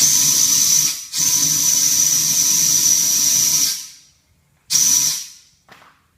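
Pressurised gas hissing hard from a nozzle with a high whistle: a burst of about a second, a longer run of nearly three seconds, then a short burst and a brief puff near the end.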